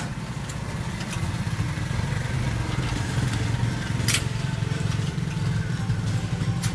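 Small 70 cc motorbike engine running at low road speed while towing a loaded trailer, a steady pulsing note, with one sharp knock about four seconds in.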